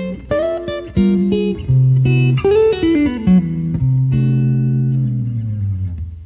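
Guitar music: a run of plucked notes over a low bass note, some notes bent in pitch, ringing out and fading away near the end.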